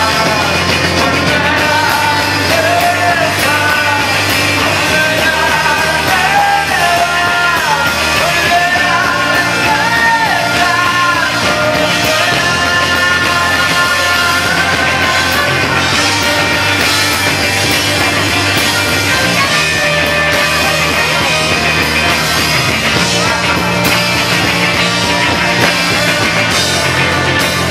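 Live rock band playing: a male singer's voice over ukulele, electric guitar, bass and drums. The singing carries the first half, then the band plays on with the voice less prominent.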